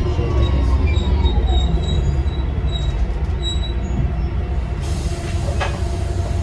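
Bus diesel engine drone with a high turbocharger whistle that falls in pitch over the first second or so as the bus eases off, followed by fainter steady high tones over the engine.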